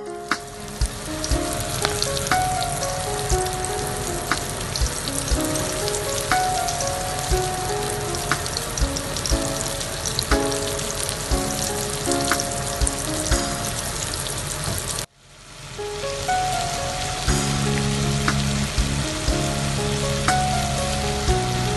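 Chicken pieces deep-frying in hot oil: a steady sizzle with scattered sharp pops and crackles. It cuts out briefly about fifteen seconds in, then resumes, with background music underneath.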